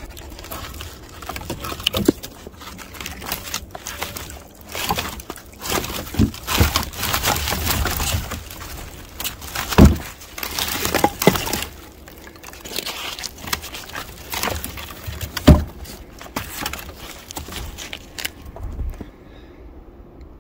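Sticks and logs knocking and clattering as a gloved hand rummages through a woodpile, pulling pieces loose. The sound comes in irregular bursts of knocks and rattles, with two sharp knocks standing out, about halfway through and again about three-quarters of the way through.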